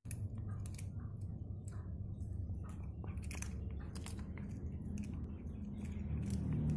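Domestic cat chewing a green lizard: irregular wet crunching clicks of teeth on the prey, several a second, over a steady low hum.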